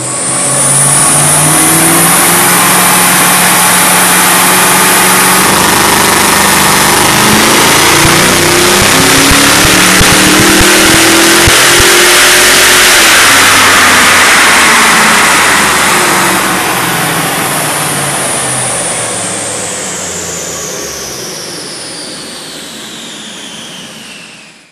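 HDT Blue Meanie's 6-litre V8 with a full exhaust, running on a chassis dyno: it revs higher and higher for about thirteen seconds during a power run. The throttle then comes off, and the engine and the dyno rollers wind down, with a high whine falling away until near the end.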